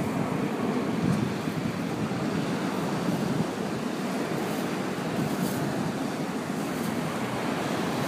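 Rough sea surf breaking and washing up a sand-and-shell beach, a steady wash of waves.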